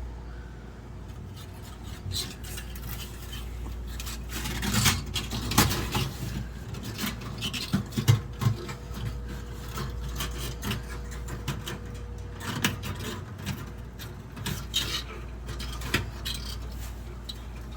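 Chicken wire mesh being handled and worked around a car's rusted exhaust pipe: irregular metallic scraping, rubbing and clinking, with sharper clicks at times.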